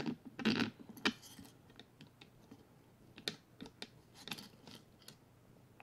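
Scattered light clicks and taps of a small cooling fan being handled and slid into place over its mounting bolts, with a sharper click about a second in.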